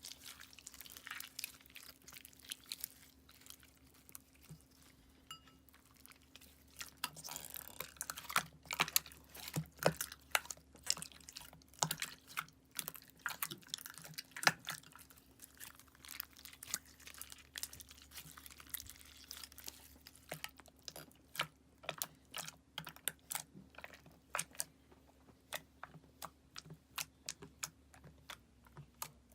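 Clear slime with glitter being kneaded and squished by hand: a run of wet pops and sticky crackling clicks, growing faster and sharper from about two-thirds of the way through.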